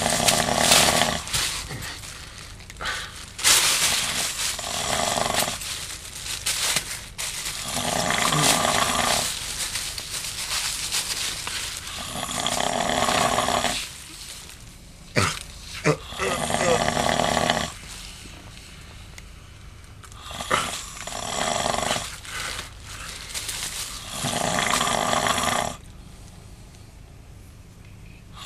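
A man snoring heavily, one loud snore on each breath about every three to four seconds, around seven in all, with quieter gaps between. Two sharp clicks come about halfway through.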